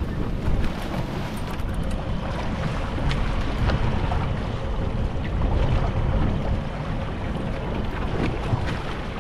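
Wind buffeting the microphone in a steady low rumble, with sea water splashing and lapping around the boat's stern.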